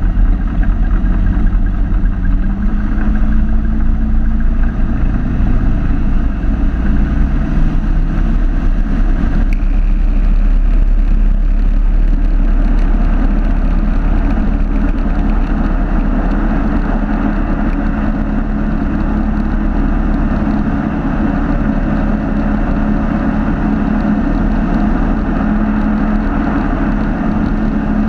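Light aircraft's Rotax 912 four-cylinder engine and propeller at takeoff power, heard inside the cabin: the engine note rises in the first few seconds, then holds steady through the takeoff roll and climb-out.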